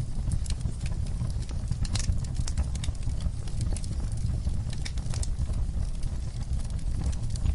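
Wood fire crackling: a steady low rumble of burning with frequent sharp pops and snaps scattered irregularly throughout.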